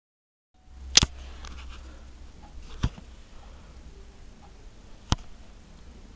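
After half a second of dead silence, a low steady hum of room noise comes in, with three single sharp clicks about two seconds apart; the first is the loudest.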